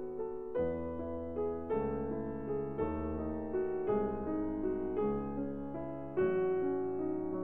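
Piano music, a slow piece with a new chord struck about once a second.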